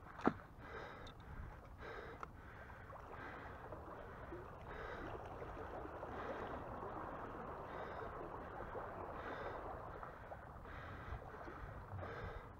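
Water sloshing and gurgling around a small inflatable raft as it moves across a river, with slow, regular heavy breathing from the person aboard and a sharp click just after the start.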